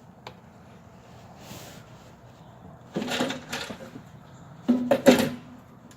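Handling knocks and scrapes as a fire alarm panel enclosure is held and shifted against the wall: quiet at first, then a run of scraping knocks about three seconds in and two sharp knocks near the end.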